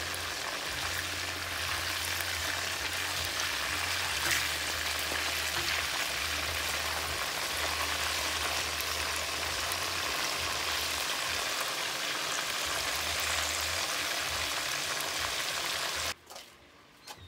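Chicken pieces frying in hot oil in a pot: a steady sizzle with scattered pops that cuts off suddenly about a second before the end.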